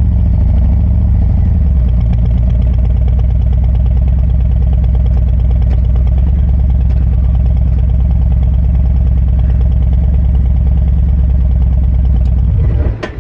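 Harley-Davidson touring motorcycle's V-twin engine running close by, just after starting: a brief rise in revs at first, then a steady, evenly pulsing low-speed run. The sound stops abruptly near the end.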